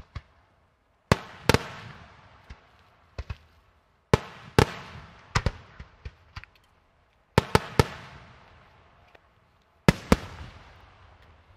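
Daytime aerial fireworks shells bursting overhead. Sharp bangs come singly, in pairs or in threes, a second or two apart, and each fades in a long rolling echo.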